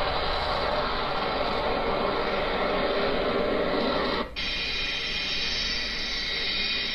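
F-35 fighter's single turbofan engine (Pratt & Whitney F135) during takeoff and climb-out: a loud, steady rushing roar. It breaks off for an instant about four seconds in, then goes on thinner and hissier.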